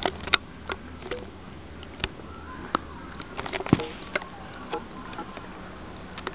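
Scattered clicks, taps and rustles from handling close to a furry pet, two of them sharp knocks, over a steady low hum.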